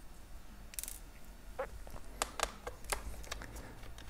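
Light, irregular clicks and scrapes of a small screwdriver and fingers working on a laptop's plastic and metal parts.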